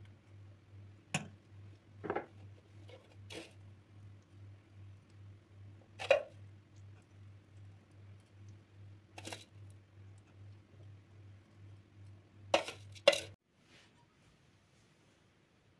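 Seven or so sharp clinks and knocks of small hard objects being handled and set down, over a low pulsing hum that cuts off abruptly near the end.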